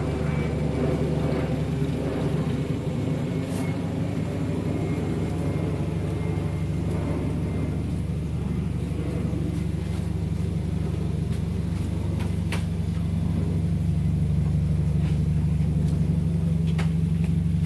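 Car engine idling steadily, a low, even hum, with a few faint clicks over it.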